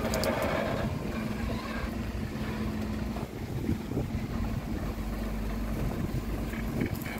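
Heavy diesel truck engine idling steadily, a low rumble with a hum that drops out about three seconds in, with wind on the microphone.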